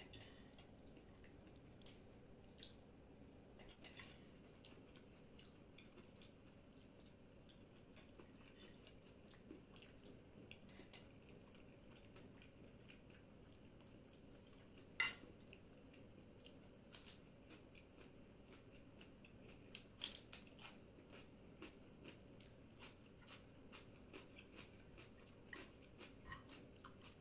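Faint close-up eating sounds: chewing of pasta and sausage with scattered short clicks of a metal fork against a ceramic plate, the sharpest click about halfway through and a small cluster a few seconds later.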